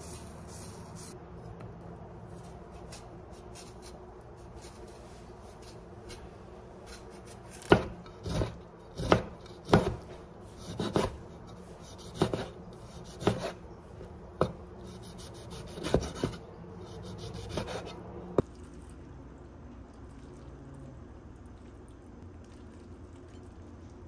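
Chef's knife mincing lemon on a wooden cutting board: about a dozen sharp knocks, roughly one a second, starting about a third of the way in and stopping about three-quarters through.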